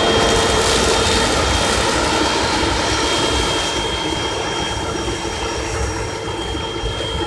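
Claas Lexion 480 combine harvester running steadily while harvesting corn: a loud engine-and-machinery drone with a steady high whine over it.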